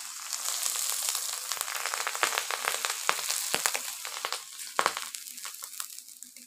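Hot ghee with fried onions and cumin poured over cooked rice, sizzling and crackling loudly, then dying away over the last second or two.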